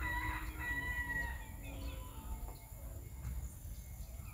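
A rooster crowing once, a single drawn-out call that ends about a second and a half in, over a steady low rumble.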